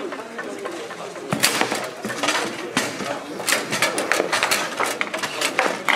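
Sharp, irregular clacks of a foosball game on a Bonzini table: the hard ball struck by the rod men and knocking against the table walls, coming thick and fast from about a second and a half in. A murmur of voices in the hall runs underneath.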